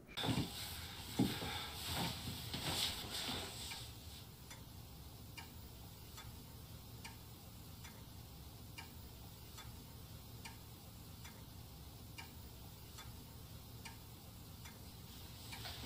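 Clock ticking faintly and evenly, a little more than once a second, after a few soft knocks and rustles in the first few seconds.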